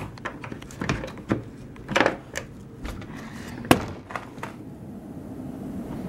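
Handling knocks and clicks while moving to a door, a sharp latch click about three and a half seconds in, then a steady rush of blizzard wind as the door opens.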